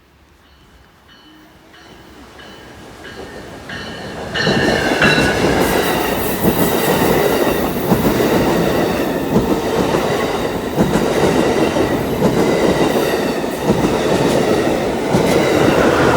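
A train passing close, heard building from faint to loud over the first few seconds, then a sustained rumble with regular clicks of the wheels over rail joints and some high-pitched tones from the wheels on the rails.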